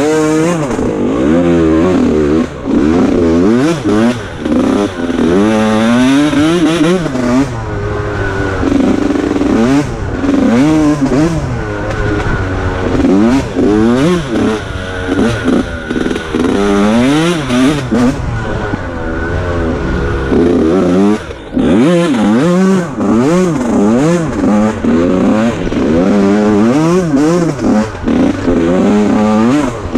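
Dirt bike engine revving up and down again and again as the throttle is worked through mud, with the rattle of the bike over rough ground; about two-thirds of the way through the throttle briefly shuts off before it picks up again.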